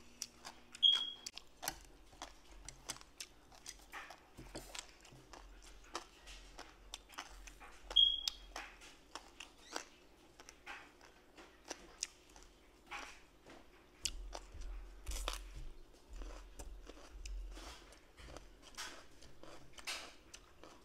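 Close-up chewing of crunchy salad vegetables, a run of crisp crunches and bites. Two short high beeps cut in, about a second in and again about eight seconds in.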